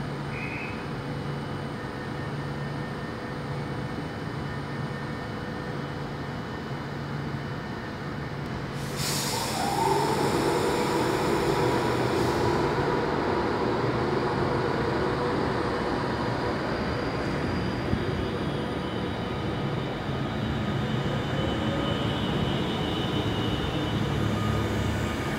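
Class 390 Pendolino electric train humming with a low pulse about once a second, then about nine seconds in a sudden loud hiss that lasts a few seconds and the train's whine, louder, as it moves off.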